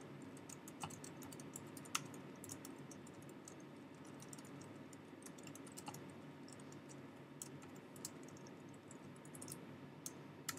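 Typing on a computer keyboard: faint, irregular key clicks in uneven runs.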